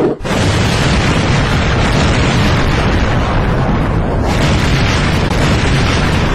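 Explosion sound effect: a loud, continuous, dense roaring rumble with no separate blasts, beginning just after a brief drop at the start.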